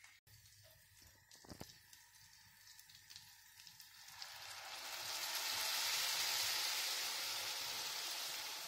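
Water poured into a hot frying pan of browned ground beef, hissing and sizzling as it hits the pan. The sizzle starts about four seconds in, swells to its loudest a couple of seconds later, then eases a little. Before it there are only faint clicks and one light knock.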